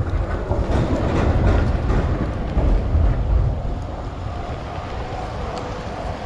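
City street traffic in the rain: a heavy low rumble over a steady noisy wash, strongest for the first three seconds or so and then easing off.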